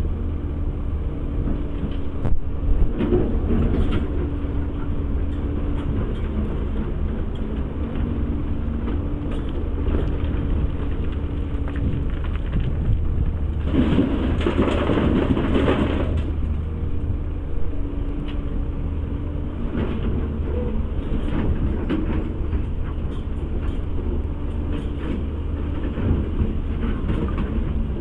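Caterpillar 336 excavator's diesel engine running steadily at work, a constant low drone with a mid-pitched tone that comes and goes. About halfway through there is a louder, rougher stretch lasting about two seconds.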